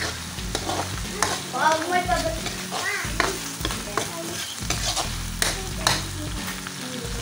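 Food frying in a pan and being stirred: a steady sizzle with repeated scraping and clacking of a utensil against the pan.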